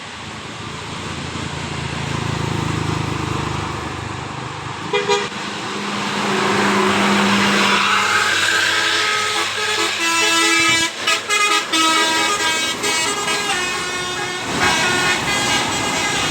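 Bus engine and road noise growing louder, a short horn toot about five seconds in, then a Basuri telolet multi-tone bus horn playing a quick tune of stepping notes with short breaks.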